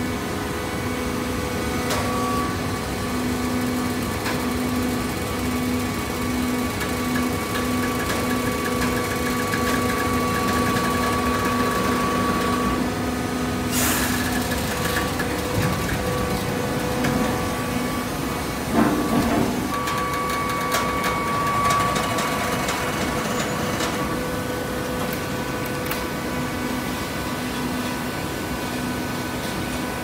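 Horizontal hydraulic baler running with a steady machine hum. A sharp knock comes about two seconds in, another around halfway, and the loudest clanks a few seconds after that.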